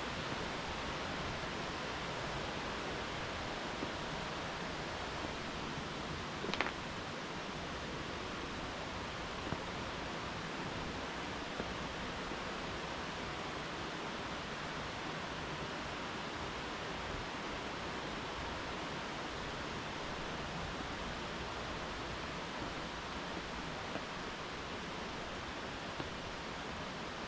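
Steady, even rush of a flowing mountain stream, with one brief sharp click about six and a half seconds in.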